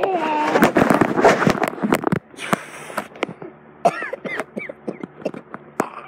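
Handling noise from a phone being moved about: a rapid string of clicks and knocks, then scattered taps. Around four seconds in, a girl makes a few short squeaky vocal noises.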